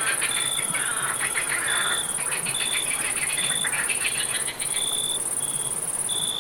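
Night chorus of crickets and frogs: a steady high-pitched insect trill, short chirps repeating about once a second, and rapid pulsing frog-like calls in the first half.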